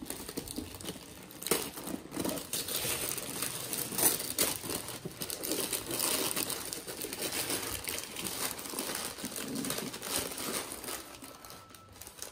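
Gift wrapping paper and tissue paper being torn and crinkled by hand as a present is unwrapped, a continuous rustle with many small crackles.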